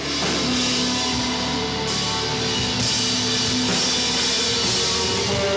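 Loud rock music: a full drum kit with a heavy wash of cymbals under held, sustained notes.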